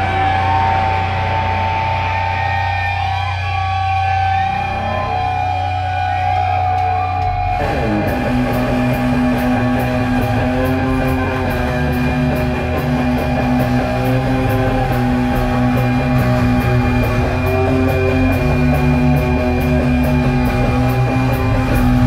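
Live rock band playing an instrumental passage with electric guitars, bass and drums. It opens sparse, with a long held note over a steady bass. About eight seconds in, the full band kicks in with drums and a steady cymbal beat.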